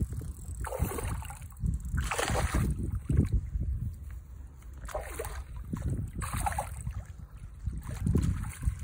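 A hooked brown trout thrashing at the water's surface, making short irregular splashes, over a low rumble of wind on the microphone.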